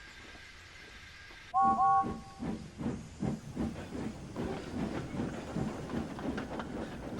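Steam locomotive blowing two short toots on its whistle, then chuffing steadily at about three beats a second as it pulls away. A faint steady steam hiss comes before the whistle.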